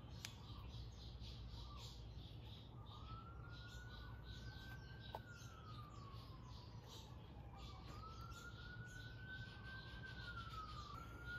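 Faint siren wailing, rising and falling slowly through two cycles, with birds chirping.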